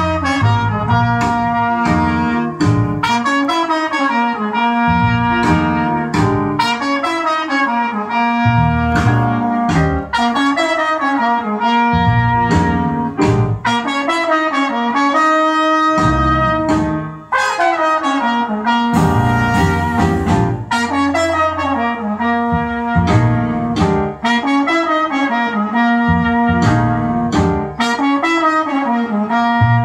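A jazz recording with a horn carrying the lead line over a stepping bass and regular cymbal strokes, played back through a 1960s Philips valve amplifier and Altec Lansing full-alnico 16-ohm speakers.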